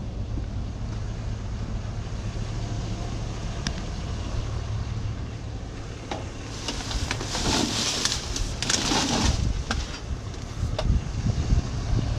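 Truck running with a steady low hum. A louder rushing noise swells for about three seconds roughly two-thirds of the way in.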